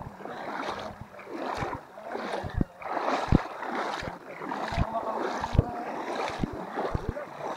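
Water splashing and sloshing as a mountain bike crosses a shallow rocky river, in irregular surges with scattered low knocks.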